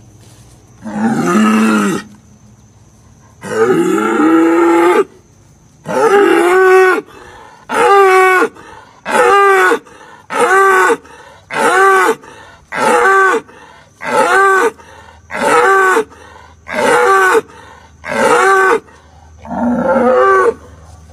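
Hereford bull bellowing again and again: about fifteen loud calls that rise and fall in pitch, the first few longer and further apart, then one about every second and a half.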